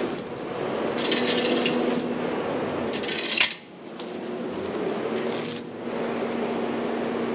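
Skid steer loader idling steadily, a low hum with a steady drone, close by. Three bursts of metal jingling and clinking come from its grapple attachment and the chain hanging from it.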